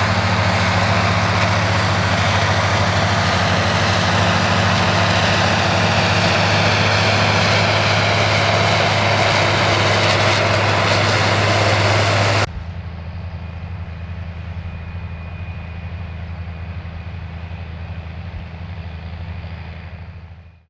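Big Ford tractors' diesel engines working steadily as they pull cultivators through the field. About twelve seconds in the sound cuts to a quieter, more distant engine drone, which fades out at the end.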